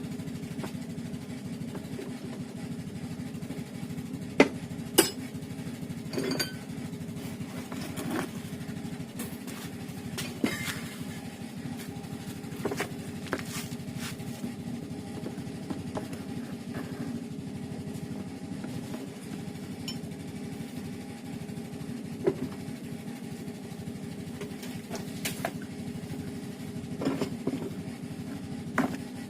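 Kärcher K7 pressure washer motor running steadily with a continuous hum, with scattered sharp clicks and knocks on top, the loudest two a little over four seconds in.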